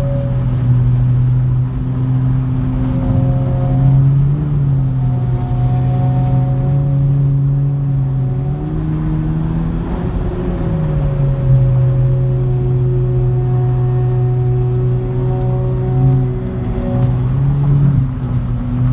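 Car engine droning with road noise inside the cabin at freeway speed, heard from a Honda Civic hatchback. The drone is steady, its pitch rising and falling slightly a few times as the throttle changes.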